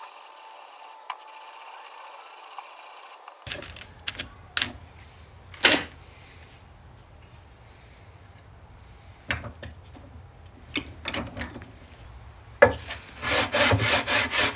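Leveling beam sanding a wooden guitar neck blank to take out saw marks: a few scattered single strokes and handling knocks, then a run of quick back-and-forth strokes near the end.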